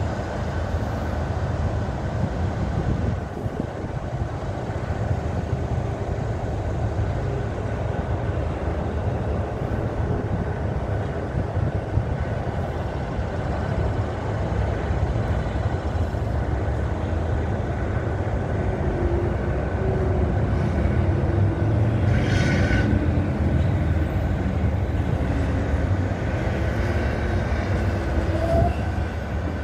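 Steady traffic noise from cars and tractor-trailers passing on a multi-lane highway, a continuous low rumble that grows somewhat louder in the second half, with a brief hiss about two-thirds of the way through.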